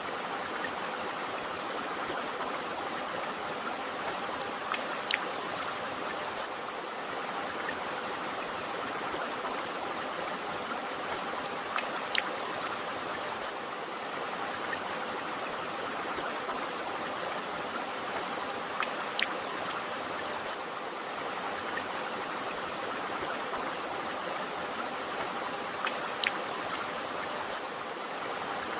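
River water flowing steadily, a continuous rushing. Brief sharp ticks sound about every seven seconds.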